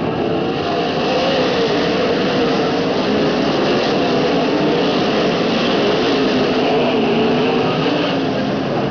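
Winged sprint cars' V8 engines running together as a pack around a dirt oval: a loud, steady din of overlapping engines whose pitches waver up and down.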